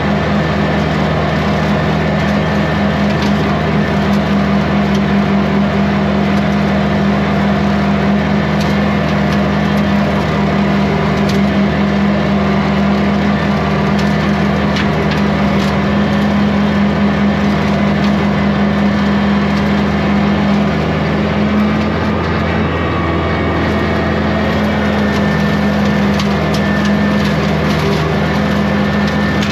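Kubota compact tractor's diesel engine running steadily with its rotary brush cutter engaged, while scattered sharp snaps and cracks of brush and sticks being cut come through, most of them in the middle stretch.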